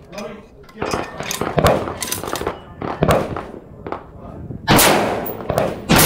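Bolt-action rifle being loaded, the bolt worked with a run of clicks and clacks, then two loud gunshots about a second apart near the end, each with a long echo under the range roof.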